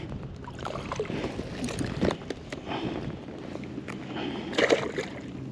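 Handling noise as a black sea bass is reeled up and brought aboard a kayak: scattered clicks, knocks and rustles over a steady low background, with one louder burst about four and a half seconds in.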